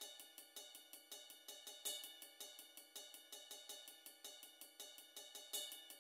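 Faint background music with a quick, even ticking beat, about five strokes a second, and two louder accents.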